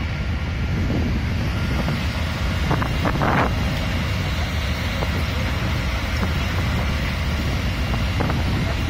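Wind rumbling on the microphone over the steady running of idling fire engines, with a short burst of noise about three seconds in.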